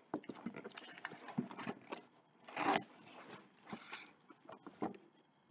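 Cardboard shipping box being handled and opened by hand: irregular scraping, rustling and light knocks, with two louder scrapes about two and a half and nearly four seconds in.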